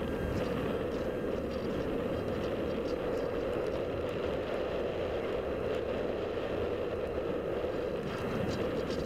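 Steady rush of air over the onboard camera of a Radian Pro electric glider in flight. The motor is stopped and the plane is gliding.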